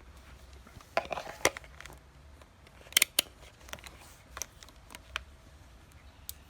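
A series of short, sharp clicks and taps from small hard objects being handled on a workbench: a cluster about a second in, the two loudest about three seconds in, then lighter ones.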